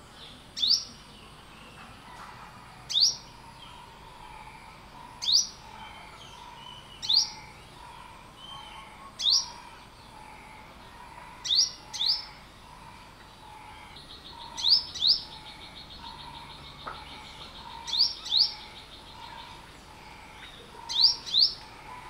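Olive-backed sunbird giving sharp, high chip calls, singly or in quick pairs, every two to three seconds.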